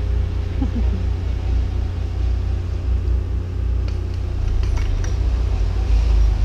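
Wheeled Terex excavator's diesel engine running steadily close by, with a few light knocks about four to five seconds in and the engine growing a little louder near the end.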